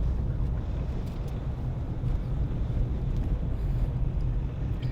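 Steady low rumble of a car driving along, engine and tyre noise as heard from inside the moving vehicle.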